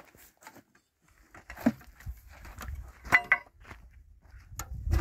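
Metal pots and pans clinking and clattering in a plastic basin as it is lifted and set down, with one sharp ringing metallic clink about three seconds in, over a low rumble.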